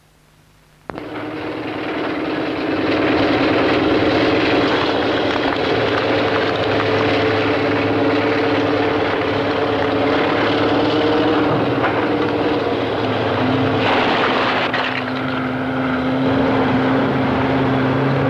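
Heavy earth-moving machinery, a cable-operated face shovel and a dump truck digging and loading blasted rock, running with a steady engine drone that starts about a second in.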